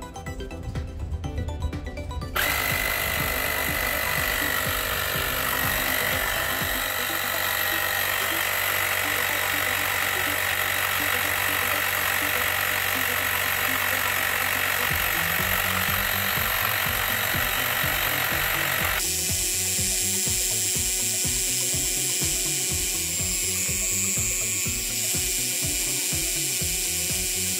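Rechargeable portable air compressor starting up about two seconds in, after a little music, and then running steadily with a loud mechanical buzz. About two-thirds through, its sound changes to a fast, even chugging with a high hiss.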